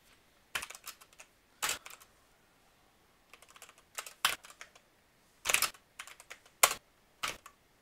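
Backlit computer keyboard being typed on: irregular bursts of a few sharp key clicks each, with pauses of about a second between the bursts.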